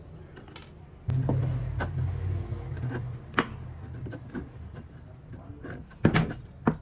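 A small motor running with a steady low hum that grows louder about a second in, with a few sharp knocks near the end.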